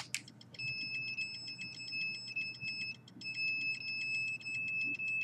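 Electronic signal meter's audio output, most likely an RF/EMF meter: a steady high-pitched tone chopped by a rapid, even clicking. It starts about half a second in and drops out briefly about three seconds in. This is the meter sounding off on the signal it is picking up.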